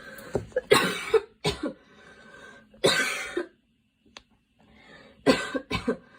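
A girl coughing in repeated fits: a run of several coughs in the first two seconds, one cough about three seconds in, and another quick run near the end.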